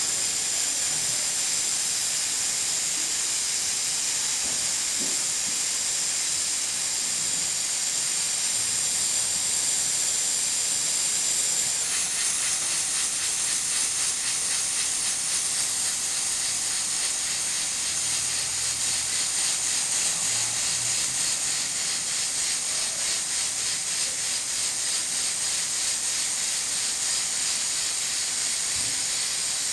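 Nigro pressure cooker hissing steadily as steam escapes at its weighted valve. About 12 s in, the hiss shifts higher and takes on a fast flutter.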